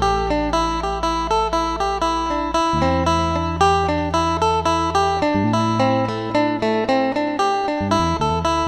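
Phin, the Isan Thai plucked lute, playing a quick, even run of plucked melody notes over a held low bass that changes pitch about every two and a half seconds.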